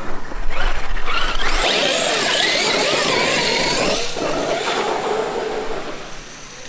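Traxxas X-Maxx 8S RC monster truck driving hard: its brushless motor whines, rising and falling with the throttle, over the noise of the big tyres churning on dirt. Near the end it sprays through a muddy puddle and the sound fades as it pulls away.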